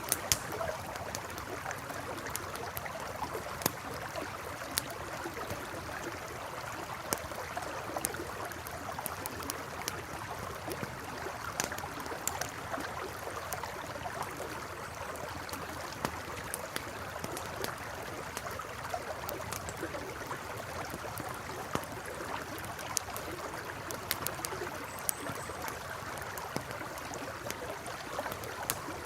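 Campfire crackling with scattered sharp pops over the steady rush of a flowing river.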